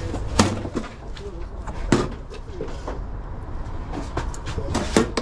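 Metal tongs and a ladle clacking against the stainless-steel pans of a hot dog cart while a hot dog is served and chili is scooped on. There are a few sharp clacks, the strongest near the start, at about two seconds and near the end, over a steady low hum.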